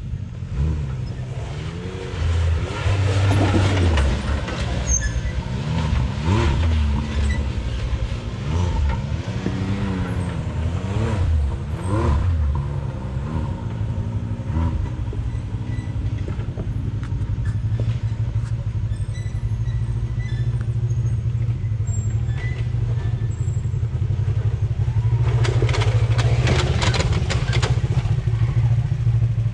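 Off-road vehicle engine revving up and down again and again, then running more steadily, with a few seconds of rough noise near the end.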